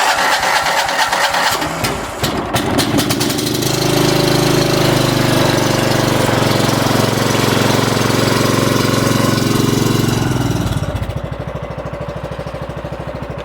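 Cub Cadet walk-behind lawn mower engine running at speed with a steady drone. About eleven seconds in it drops to a quieter, slower, pulsing idle.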